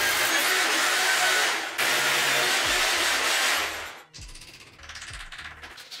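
Handheld power tool cutting into a wall, running in two spells of just under two seconds each with a short break between, then stopping about four seconds in.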